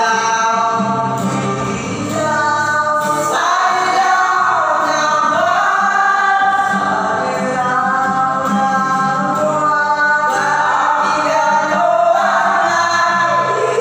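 Three young men singing a song together to an acoustic guitar played by a fourth.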